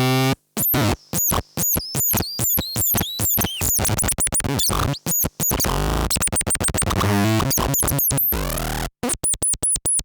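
Analog noise synth and fuzz pedal making glitchy electronic noise: stuttering, chopped bursts that cut in and out abruptly, with quick pitch swoops, buzzy fuzzed tones and rapid-fire chirps.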